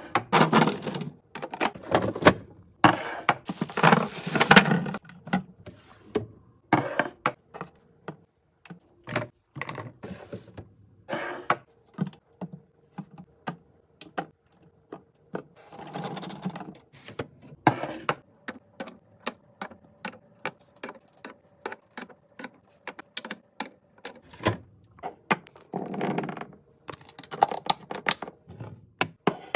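Plastic and glass storage containers, jars and packaged food being handled and set down: many irregular light taps, clicks and knocks, with short stretches of packaging rustle near the start, about halfway and near the end.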